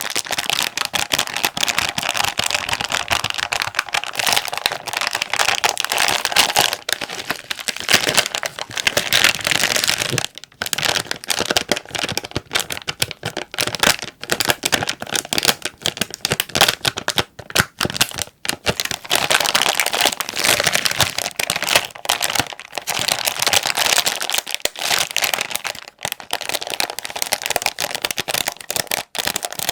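Plastic Jin Ramen Mild instant noodle packet being squeezed and crumpled, a dense crackling crinkle that runs on with a few brief pauses.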